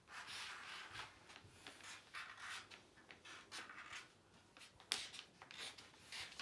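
Marker pens scratching across paper in short, irregular strokes, with one sharper click about five seconds in.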